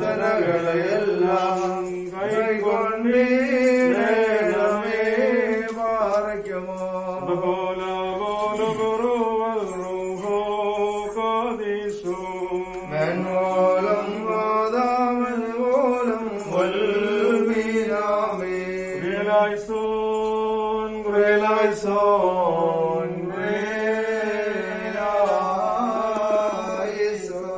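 Voices singing a slow Malayalam Christian hymn in long, held notes over a steady low accompanying drone.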